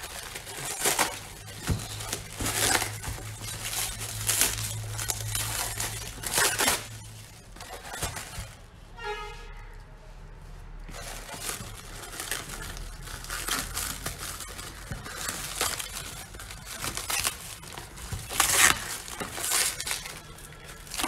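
Clear plastic stretch wrap being crinkled and pulled off a small cardboard box by hand, in repeated bursts of crinkling and rustling.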